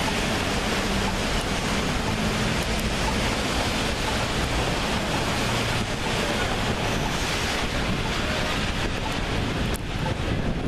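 Wind blowing over the camera's microphone, a loud, even rushing hiss.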